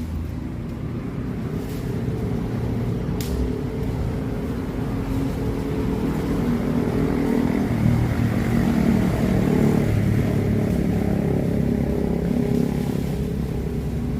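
A vehicle engine running steadily with a low rumble, swelling slightly in loudness partway through.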